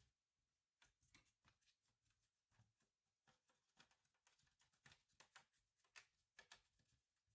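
Faint, irregular clicks and light taps of small laptop parts being handled and worked on.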